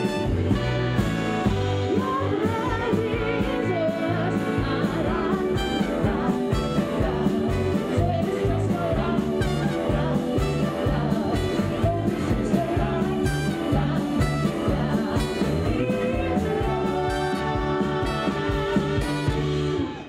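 Live band playing an up-tempo soul-rock number: electric guitar, bass and drums with a steady beat under a woman's lead vocal.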